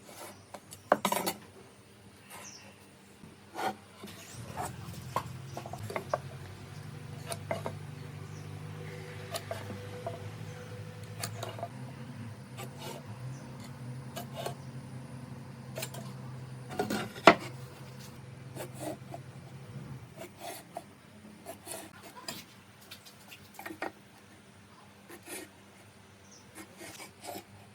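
Workshop handling sounds: wood and tools knocked, tapped and rubbed at an irregular pace, with a low steady hum that comes in about four seconds in and stops about twenty seconds in. The loudest knocks come about one second in and about seventeen seconds in.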